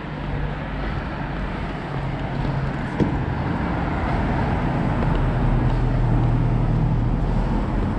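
Street traffic: a car's engine and tyre noise grow steadily louder as it approaches along the road. A single sharp click sounds about three seconds in.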